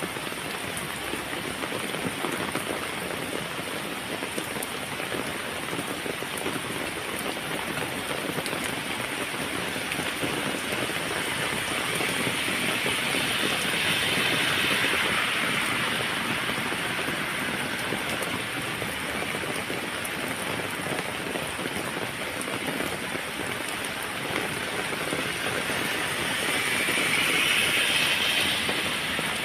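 Heavy rain falling steadily, with a dense patter of raindrops; it swells louder twice, about halfway through and again near the end.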